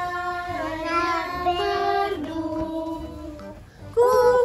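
A young child singing in long held notes that step from pitch to pitch; a louder, higher note starts near the end.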